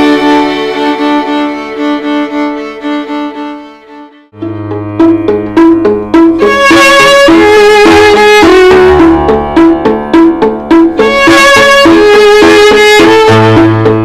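Instrumental music led by violin: a held passage fades away about four seconds in, then a quicker passage of short, repeated notes with a steady pulse begins.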